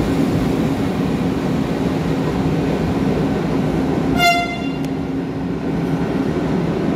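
Captrain Bitrac 601 locomotive pulling away slowly, its machinery making a steady low hum, with one short horn toot about four seconds in.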